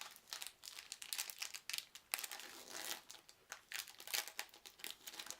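Trading-card booster pack wrapper crinkling as it is handled and torn open, with irregular crackles and rustles.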